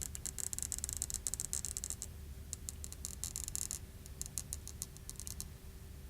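Stretch-release adhesive strip under an iPhone 6 Plus battery crackling as it is slowly pulled out, in three runs of rapid fine ticks with short pauses between.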